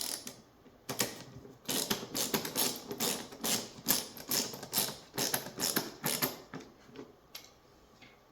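A quick, irregular run of sharp clicks and clatters from the plastic parts of a BMW headlight's halo (DRL) assembly being handled and fitted back together; it stops about six and a half seconds in.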